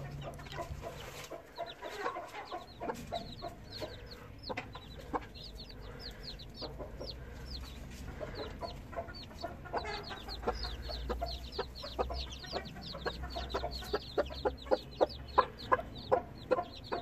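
Three-day-old chicks peeping constantly in short, quickly falling cheeps, with a black İspenç broody hen clucking among them. Near the end her short clucks come faster and louder.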